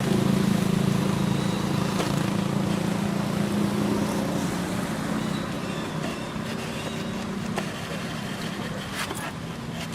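A motor vehicle's engine running with a steady low hum that slowly fades, over street noise, with a few sharp clicks near the end.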